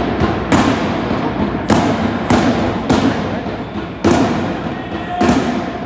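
Loud, heavy thuds echoing through a large sports hall. They fall on an even beat about every 0.6 s, with some beats skipped, six in all.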